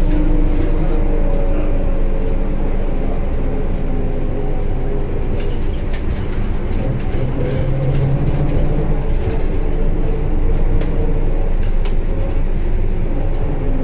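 Škoda 14Tr trolleybus heard from inside while under way: a steady rumble of the running gear and road, with the electric drive's whine gliding up and down in pitch and a few light clicks and rattles.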